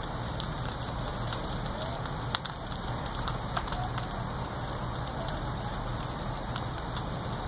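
House fire burning: a steady hiss with scattered sharp crackles and pops of burning timber, one louder pop about two and a half seconds in.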